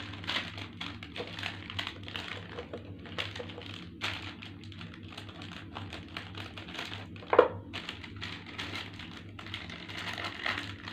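Small plastic snack pouch being opened and handled, crinkling and crackling in many small clicks, with one sharper, louder snap about seven seconds in.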